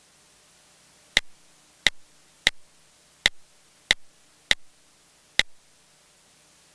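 iOS on-screen keyboard key clicks from the device's speaker as a word is typed letter by letter: seven crisp clicks, each with a short softer echo, about two-thirds of a second apart.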